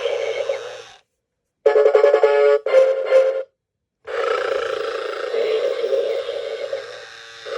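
Vintage snoring bear alarm clock's electronic sounds through its small speaker: a rasping snore sound fades and stops, and after a moment of silence a short tinny ringing tune plays, ending in two quick beeps. After another pause the snoring starts up again.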